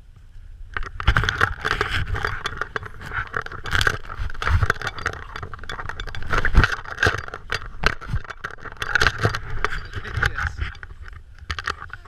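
Snow crunching and scraping close by, with clothing rustle and dull thumps: a dense, irregular run of crunches that starts about a second in and stops shortly before the end.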